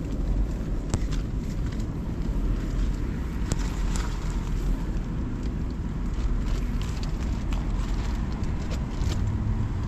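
Steady low rumbling noise with scattered light clicks and ticks.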